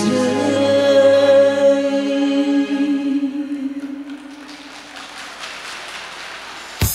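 A woman singing a long held note into a microphone over a backing track at the close of a song. After about three seconds the note ends and the accompaniment fades out, and a sharp click comes at the very end.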